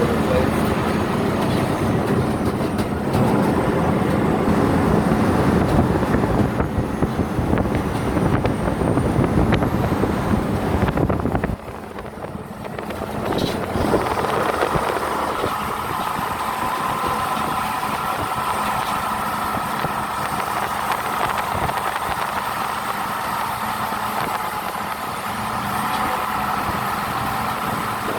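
A vehicle running steadily during a ride, with heavy rough rumble and rattle for the first half, a brief drop in level just before halfway, then a smoother, steadier running sound with a faint whine.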